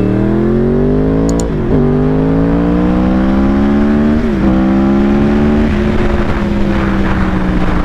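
Yamaha R1's inline-four, fitted with what the rider believes is a full Yoshimura exhaust, pulling hard up through the gears. The engine note climbs in pitch, drops sharply at two upshifts about a second and a half and four seconds in, then holds steady at cruising speed.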